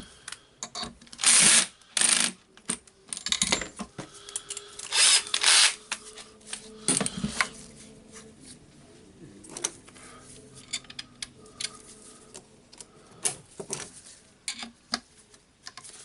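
Screwdriver bits and tools being handled: several loud rattling bursts in the first half, then quieter clicks and scrapes as a screw in the jigsaw's base is worked loose.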